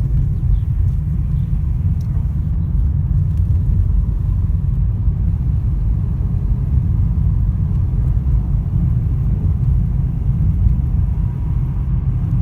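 Lada Vesta driving over uneven road: a steady low rumble of road and tyre noise, with a few faint knocks from the suspension on the bumps.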